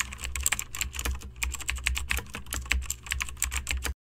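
Fast computer keyboard typing: a dense run of quick key clicks over a steady low hum, cutting off abruptly about four seconds in.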